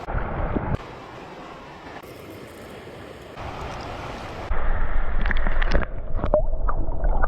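Fast creek water rushing, with wind buffeting the microphone and some handling knocks and clicks in the second half.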